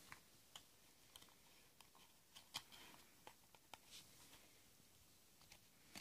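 Faint, irregular clicks and taps of a small deck of stiff cardstock cards being handled and squared on a tabletop, the sharpest about two and a half seconds in.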